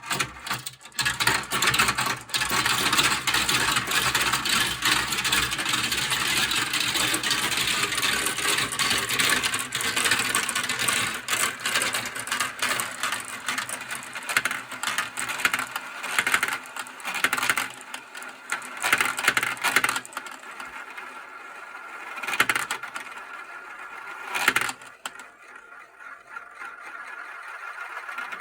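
Many marbles rolling and clattering down a plastic marble-run track, a dense steady rattle of clicks that thins out after about twenty seconds to a few scattered clicks as the last marbles finish.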